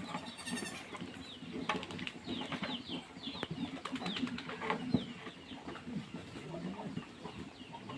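Farmyard birdsong and fowl: many short, high, falling chirps with some clucking, over scattered clicks and knocks.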